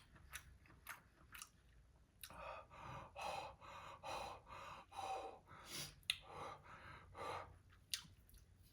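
A person eating chewing with faint mouth clicks, then from about two seconds in breathing hard in and out through the mouth in a run of quick, noisy breaths: drawing air to cool a mouth burning from extremely spicy Nashville hot chicken.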